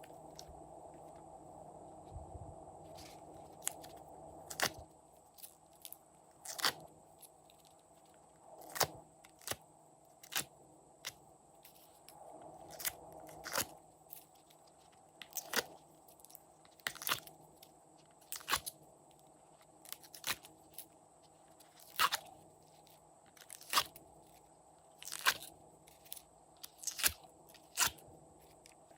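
Glossy slime being kneaded and folded by hand, giving sharp crunchy pops and clicks about every one to two seconds, after a few seconds of softer squishing.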